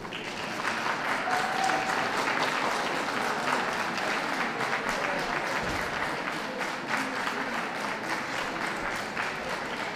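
Audience applauding, starting at once, building over the first second and then carrying on steadily.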